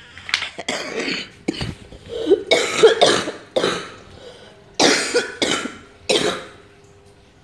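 A person coughing in repeated harsh fits, several coughs in a row, the strongest cluster about two to three seconds in and the last about six seconds in.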